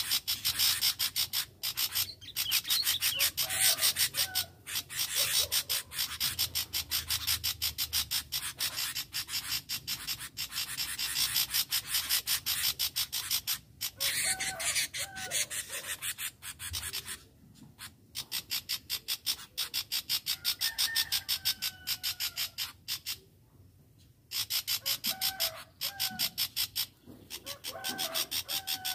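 A loud, rapidly pulsing rasp that breaks off briefly twice, with a few short calls of red-vented bulbuls over it.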